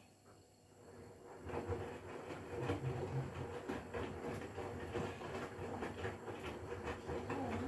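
Hotpoint Core washing machine starting up again about a second and a half in, running with a steady rumble and rapid rattling clicks.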